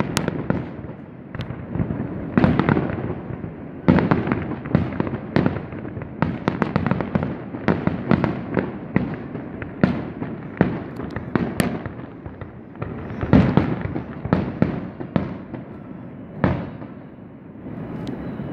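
Fireworks display: aerial shells bursting in quick succession, a long run of sharp bangs that thins out near the end.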